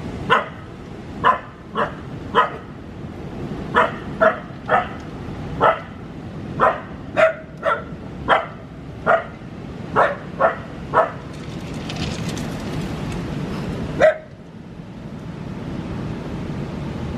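A dog barking in short single barks, about sixteen spaced half a second to a second apart, then a pause of about three seconds and one last bark.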